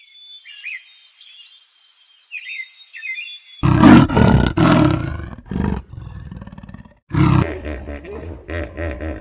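Faint high chirping calls, then suddenly a loud animal roar repeated several times, followed by rough, pulsing growls.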